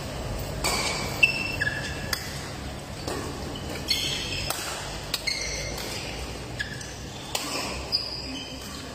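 Badminton rally: about six sharp cracks of rackets striking the shuttlecock, the loudest about a second in, among short high squeaks of court shoes on the synthetic mat.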